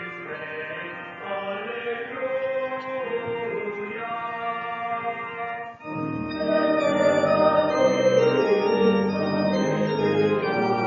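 Church organ playing a hymn, with voices singing along. Just before six seconds in there is a brief break, then a louder, fuller passage begins.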